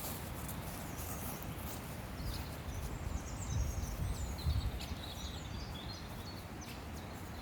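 Wild birds chirping and calling in a forest, a string of short high calls starting about two seconds in, over a low rumble that swells in the middle.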